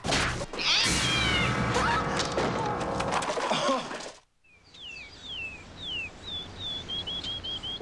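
TV promo soundtrack, a busy mix of film-clip sound, cuts off about four seconds in. Then a bird calls: first several falling whistled notes, then a quick run of short repeated chirps, about four a second.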